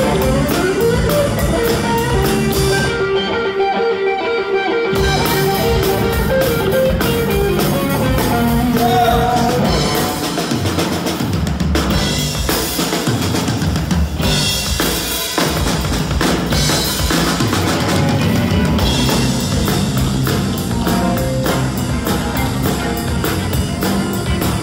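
Live blues-rock trio playing: electric guitar, electric bass and a Pearl drum kit. A guitar note bends upward and is held at the start. About three seconds in, the drums and bass drop out briefly, then come back with busy drumming.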